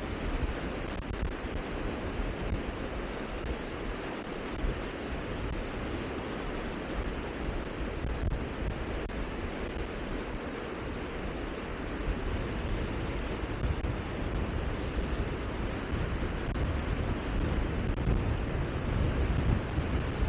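Steady rushing wind outdoors, with gusts buffeting the microphone in low rumbles that grow stronger about halfway through.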